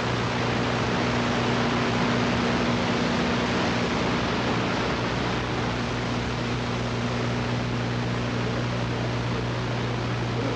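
Steady, even hiss with a low constant hum underneath, unchanging throughout.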